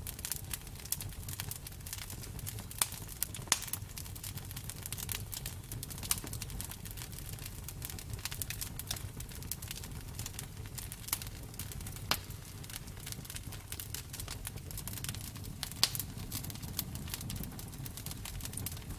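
Campfire burning with a low steady rumble and irregular sharp crackles and pops of the burning wood, a few louder snaps standing out.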